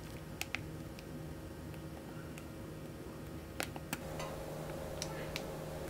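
Thick pancake batter being piped from a piping bag into a nonstick frying pan: soft squishing with a few sharp little clicks, two near the start and more near the middle and end, over a steady low hum.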